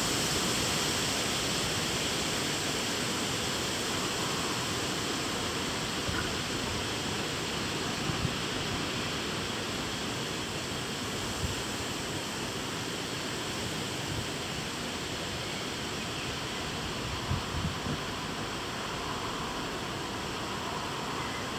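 Steady hiss of rain falling during a thunderstorm, slowly easing, with a few brief low bumps.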